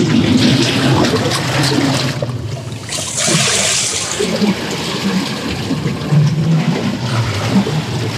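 Seawater surging into and draining out of the gaps between jetty boulders, gurgling and sloshing, with a louder hissing wash about three seconds in.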